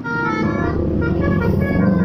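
Basuri musical bus horn playing a tune of held, changing notes from a passing tour bus, with the bus's low engine noise growing louder near the end.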